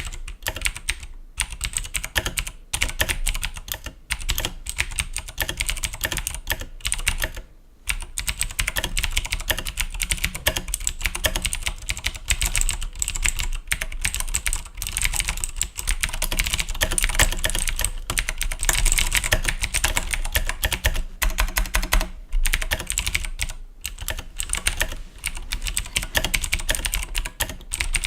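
Fast continuous typing on a Razer BlackWidow Ultimate mechanical keyboard with Cherry MX Blue clicky switches, a dense run of sharp key clicks broken by a few short pauses, the longest about eight seconds in.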